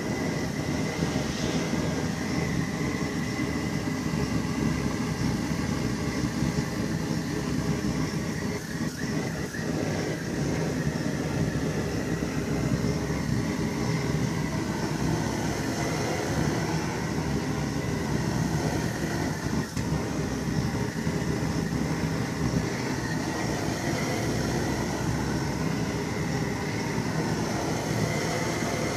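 MTZ-82 tractor's diesel engine running steadily while still cold, after a cold start at −7 °C.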